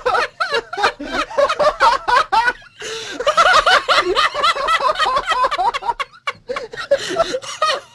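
People laughing hard, giggling and snickering, in spells with a couple of short breaks.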